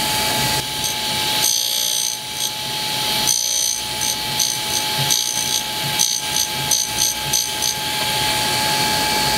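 Cutter grinder spindle whining steadily while a diamond wheel grinds a tool bit. The wheel's contact makes a high-pitched hiss that comes and goes, in quick short pulses, a few a second, through the middle. The wheel runs out about six thousandths, and the owner says that runout can be heard in the grinding.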